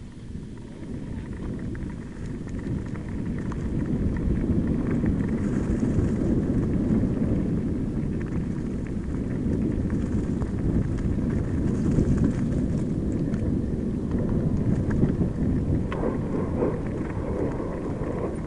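Mountain bike rolling downhill on a loose gravel track, heard from a camera mounted on the bike or rider: a dense low rumble of tyres on stones and wind on the microphone, with scattered small clicks and rattles. It grows louder over the first few seconds as the bike picks up speed.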